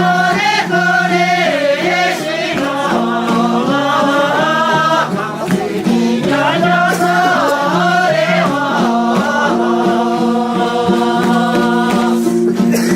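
Sherpa dance song: a group of voices singing together over steady, repeating instrumental notes.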